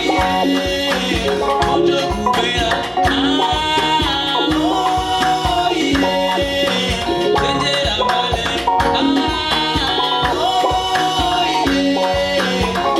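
Band music with a steady, driving percussion beat under a melodic line.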